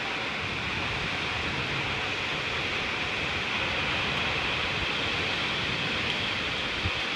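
Heavy rain pouring down in a steady, even hiss, driven by strong wind.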